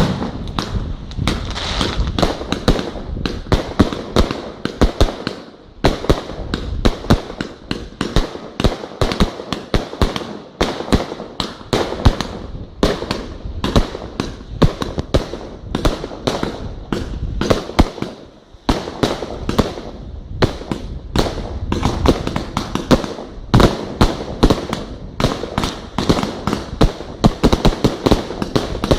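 Fireworks going off in rapid succession, a dense string of bangs several a second, with a brief lull about two-thirds of the way through.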